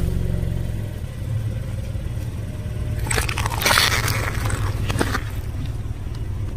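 A slow-rolling car tyre crushes small plastic toys and tubes over a steady low engine hum. A crackling crunch comes about three seconds in and lasts about a second, and a single sharp snap follows about five seconds in.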